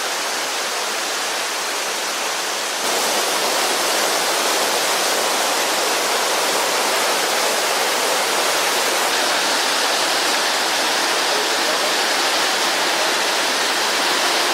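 Waterfall rushing steadily in heavy flow, swollen by days of monsoon rain. It gets a little louder and brighter about three seconds in.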